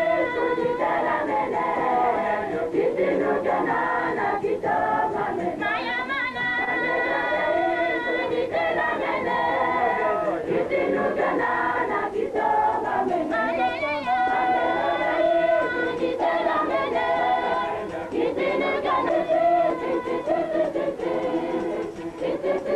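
A church choir of many voices singing a hymn-like melody, with no instruments or percussion heard.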